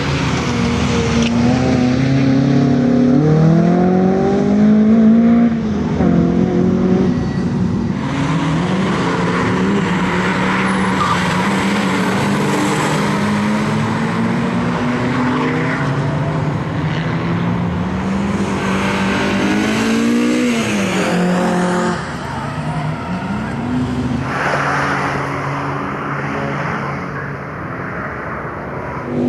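Ford Focus RS Mk1's turbocharged 2.0-litre four-cylinder engine revving hard through the gears as the car is driven sideways through corners, its pitch climbing and falling with each shift and lift, with tyre squeal at times. It grows quieter in the last few seconds as the car moves away.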